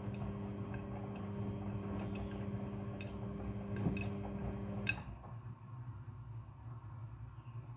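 Front-loading washing machine running, its motor humming steadily while the drum turns, with light clicks from the load tumbling. About five seconds in a sharp click comes and the motor stops, leaving a quieter rumble as the drum pauses between turns.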